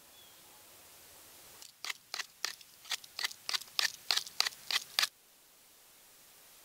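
A knife blade whittling a wooden stick: about a dozen quick, sharp shaving strokes at roughly three a second, starting about two seconds in and stopping a second and a half before the end.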